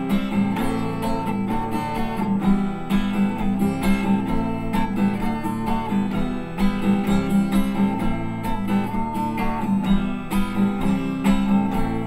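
Solo acoustic guitar strummed in a steady rhythm of chords.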